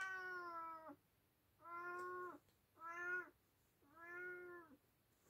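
Oriental cat meowing four times. The meows are drawn out, and the first is the longest, falling slightly in pitch at its end.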